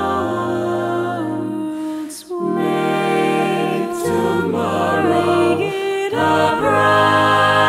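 An a cappella vocal group singing held chords in several-part harmony, breaking off briefly about two seconds in before the next phrase begins.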